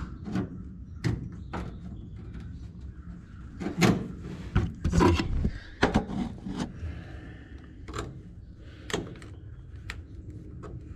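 Irregular knocks and clunks of hard objects being handled, about fifteen of them, unevenly spaced and sometimes two close together, with a brief scrape just past the middle.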